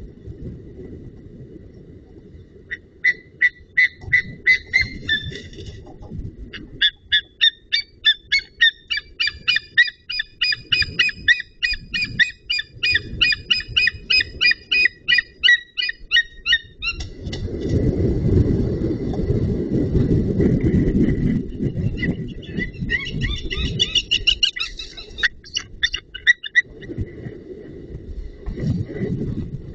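White-tailed eagle calling in long series of high, evenly repeated calls, about two a second, starting about three seconds in and breaking off around halfway, then a shorter series near the end. Wind rumbles on the microphone in between.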